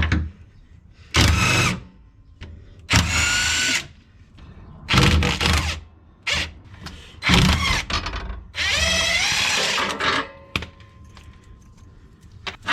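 Impact gun firing in five short bursts, each half a second to a second long, the last one the longest and rising in pitch as it spins: loosening the fasteners of the rear sway bar's lower link.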